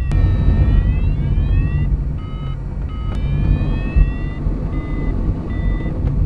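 A glider's electronic variometer sounding its audio tone, alternating short beeps with long tones that slide upward in pitch, which tells the pilot the climb or sink rate. Under it a steady low rush of airflow fills the cockpit of the PW-5 glider.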